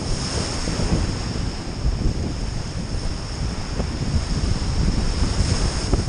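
Small waves breaking and washing up a beach, with strong wind buffeting the microphone in a steady rumble and hiss.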